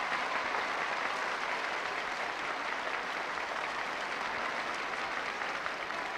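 A huge crowd applauding, a dense, steady wash of clapping that eases a little toward the end.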